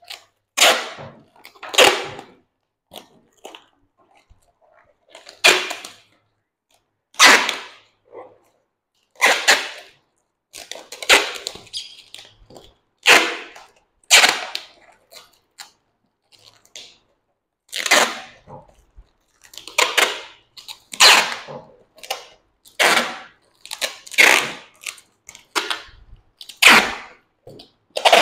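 Packing tape being ripped off the roll in short, sharp pulls, about one every one to two seconds, while parcel boxes are sealed.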